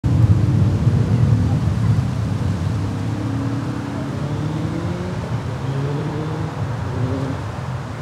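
Class 37 diesel locomotive's English Electric V12 engine working hard as it passes, a deep, wavering engine note that is loudest at the start and slowly fades as the locomotive draws away.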